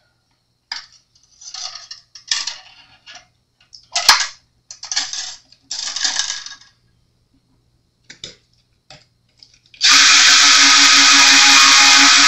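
Bass string and small parts rustling and clicking as they are handled at the headstock, with one sharp click about four seconds in. Near the end, a small cordless electric screwdriver with a winder bit starts up and runs steadily at one pitch, winding the string onto the tuning post.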